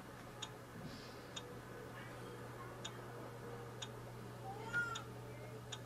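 Faint, sharp key-press ticks from the printer's touchscreen control panel, about one a second, as a password is typed, over a steady low hum. At about 4.5 seconds a short rising-then-falling call stands out as the loudest sound.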